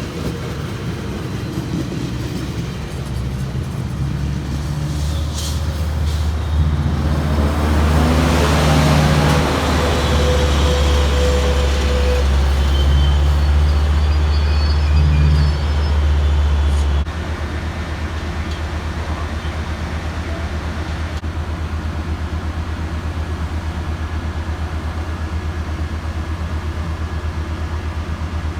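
Diesel passenger train passing: a heavy engine rumble and running noise swell to a peak in the middle, then drop abruptly to a lower, steady rumble about 17 seconds in.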